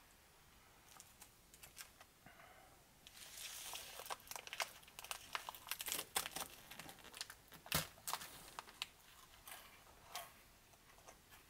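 Foil-lined paper wrapper of a hazelnut wafer bar crinkling faintly while the crumbly wafer is broken into pieces by hand, with irregular small crackles and one sharper snap past the middle.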